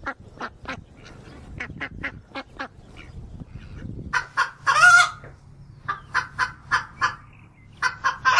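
Domestic poultry calling: a run of short, quick quacking calls, then louder calls from about four seconds in, including one longer drawn-out call about five seconds in and a cluster of calls near the end.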